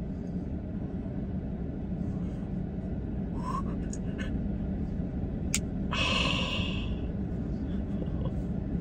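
Steady low hum inside a truck cab, with a single sharp click about five and a half seconds in from the slip-joint pocket knife's blade snapping on its backspring, followed by a breathy gasp lasting about a second.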